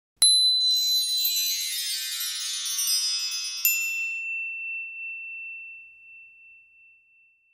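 Shimmering chime sound effect of a logo sting. A bright strike about a quarter second in opens a cascade of high tinkling tones. A second ping at about three and a half seconds leaves a single high tone ringing and slowly fading away.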